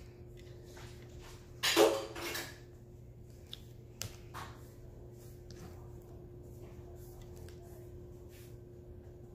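Diamond-painting drill pen working: scattered light clicks and taps of the pen tip and plastic drills against the tray and canvas, with a louder short rattle about two seconds in and a sharp click about four seconds in. A faint steady hum underneath.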